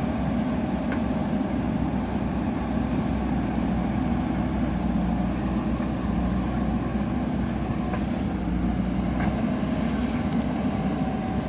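A JCB backhoe loader's diesel engine running steadily, with a few faint clicks over it.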